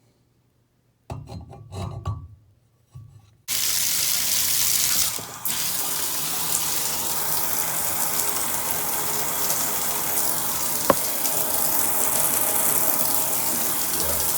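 Some brief handling knocks, then a bathtub tap opened: from about three and a half seconds in, water runs from the tub spout in a steady rush, dipping briefly a couple of seconds after it starts.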